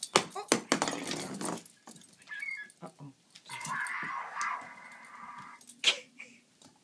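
Electronic talking dog-ball toy sounding off from its small speaker while a dog carries it in its mouth. There is a loud jumble for the first second and a half, then a thinner, steadier sound for about two seconds, and a sharp click near the end.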